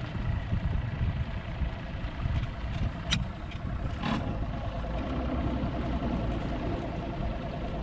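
An engine idling steadily under a low wind rumble, with two light knocks about three and four seconds in.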